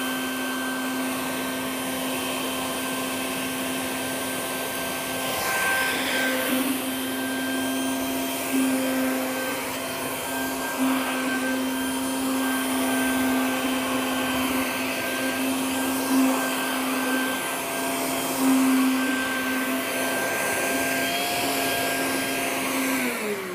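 A small wet/dry shop vacuum runs steadily as its hose nozzle sucks debris from carpet, giving a steady motor hum over rushing air. The suction noise swells briefly a few times as the nozzle moves. At the very end the motor is switched off and winds down with a falling pitch.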